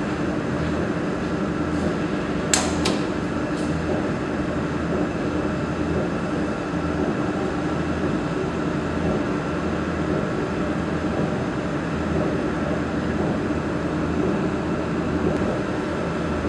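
Steady hum of a handheld laser welding machine and its water chiller running, with a sharp click about two and a half seconds in and a fainter one just after. The clicks are the emergency stop switch being released, which powers up the control screen.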